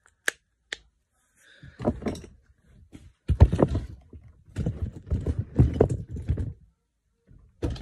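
Plastic fidget toy being handled close to the microphone: two sharp clicks, then a few seconds of irregular rubbing, knocking and rattling.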